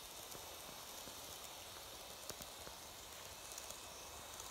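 N-gauge model trains running on track: a faint steady whir with light, irregular clicking.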